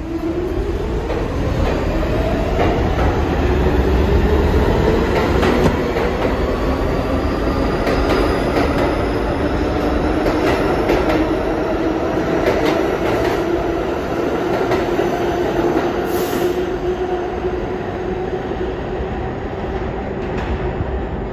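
New York City Subway train accelerating, its motors whining with a steadily rising pitch over the clicking of wheels on rail joints. A short, high hiss comes about three quarters of the way through.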